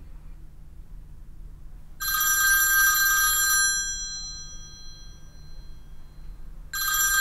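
Smartphone ringing with a bell-like ringtone. A ring of about a second and a half comes in after two seconds, its tones fading away slowly, and a second ring starts near the end.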